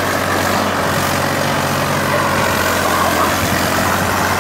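Tractor's diesel engine running steadily, without revving, as it hauls a trolley loaded with stone blocks.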